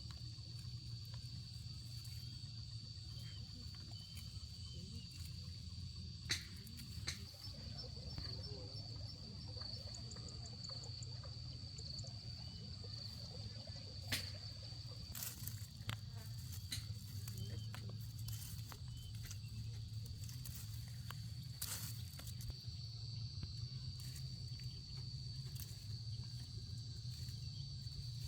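A steady, high-pitched insect drone, with a few sharp knocks and rustles now and then.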